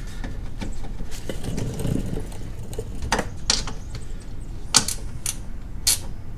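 Hand ratchet wrench clicking as a bolt is worked under the car, with a run of small ticks and several sharper metallic clicks in the second half.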